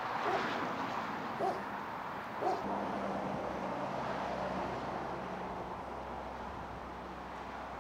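A dog barks three times, about a second apart, over steady outdoor background noise. A low steady hum sets in after the third bark and carries on.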